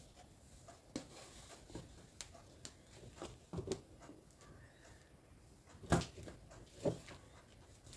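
Faint taps and soft rustling of hands working net cloth and a needle on fabric stretched in an embroidery hoop, with two louder taps near the end about a second apart.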